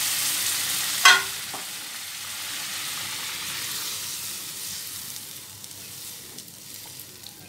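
Sizzling and bubbling in a kadai of fried dal and spices just after hot water has been poured in, while a spatula stirs the mix. There is a sharp knock of the spatula against the pan about a second in, and the sizzle slowly dies down.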